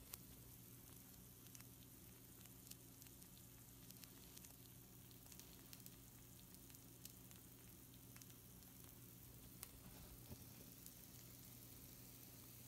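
Hot pizza rolls sizzling faintly on a baking sheet: a soft steady hiss dotted with many small irregular pops and crackles.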